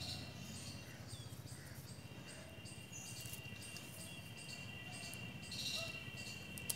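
Insects chirping in short repeated pulses, about two a second, over a steady high-pitched buzz, with a low rumble underneath and a sharp click near the end.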